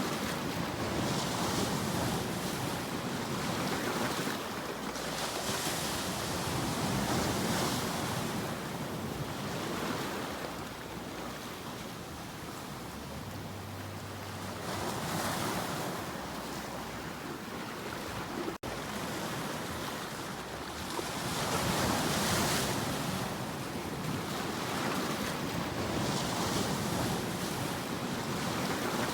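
Sea waves breaking and washing in, the surf swelling and falling back every few seconds, with a momentary cut-out about two-thirds of the way through.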